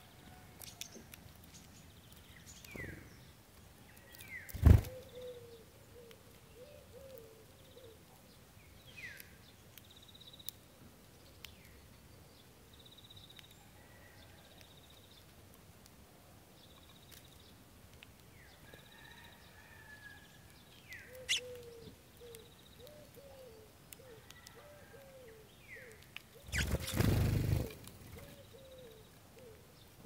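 Sparrows at a hanging tube bird feeder: scattered short chirps and two runs of short repeated calls. There is a sharp knock about five seconds in, and a flurry of wingbeats lasting over a second near the end as a bird comes in to the feeder.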